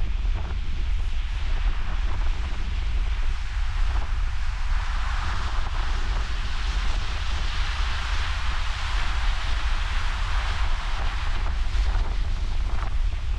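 Ocean surf at a king tide, a steady rush of water that swells louder through the middle as a wave washes in, with heavy wind buffeting the microphone as a constant low rumble.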